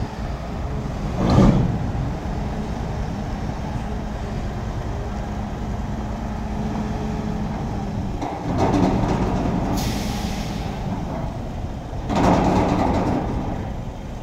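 Heavy diesel engine running steadily with a low rumble, with three louder surges of noise: about a second in, around eight seconds in and near the end.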